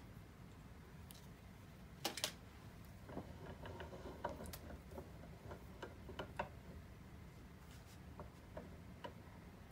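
Faint clicks and taps of metal on metal as a small brass embossing stamp and a hand arbor press are handled and lined up, with a sharper double click about two seconds in and lighter scattered clicks after it.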